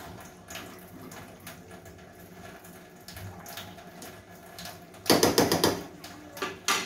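Metal spoon stirring cooked rice in a steel pan, with light scraping clicks. About five seconds in, a quick run of loud metal clinks, and one more sharp clink near the end.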